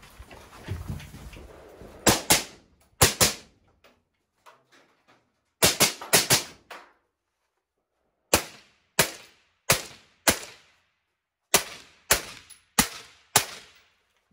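Semi-automatic AR-15-style rifle firing strings of shots from inside a shooting shed, each report with a short ringing tail. First come a few quick shots and a fast cluster, then slower, evenly spaced shots a little over one a second.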